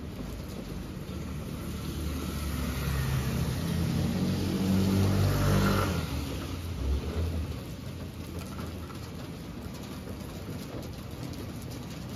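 A car drives past on the wet street, its engine hum and tyre hiss on the wet road swelling to the loudest point about five seconds in, then falling away quickly around six seconds.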